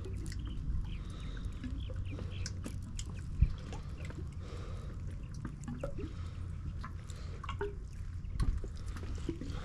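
Water lapping and trickling against a small fishing boat, with a low steady hum underneath. One sharp knock comes about three and a half seconds in.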